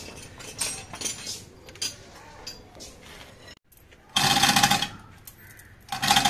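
Faint clinks of metal parts being handled, then a power tool run in two short bursts about two seconds apart, each a steady whirring rattle.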